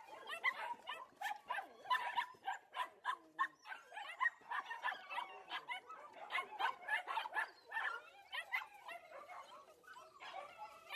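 Puppy eating kibble from a stainless steel bowl: rapid, irregular crunching and clinking of food against the metal bowl, with a hand moving in the bowl.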